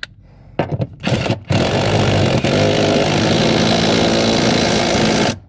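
A handheld power tool gives a couple of short bursts, then runs steadily for about four seconds driving a bolt that turns out to be cross-threaded, and cuts off abruptly near the end.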